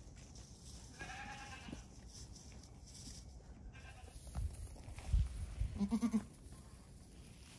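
Goats bleating: a high, thin bleat about a second in, then a shorter, louder, lower bleat near six seconds, with a few low thumps just before it.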